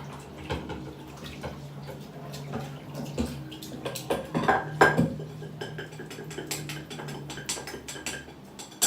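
Clinking and clattering of dishes and utensils being handled, with some water. Scattered knocks that come thickest about four to five seconds in, over a steady low hum.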